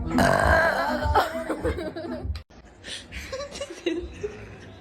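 Laughter and chuckling for about two and a half seconds. It cuts off abruptly, and quieter scattered sounds follow.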